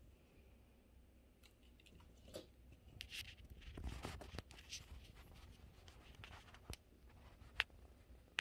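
Faint pattering and scuffling of a ragdoll cat's paws on a laminate floor as it pounces on a laser dot, busiest in the middle, with a few short sharp clicks, one louder near the end.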